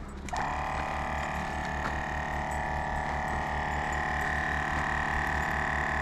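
Portable air compressor switching on and running steadily with a fast, even pulsing, inflating a pickup truck's tire back up to road pressure (about 35 psi) after airing down for the trail.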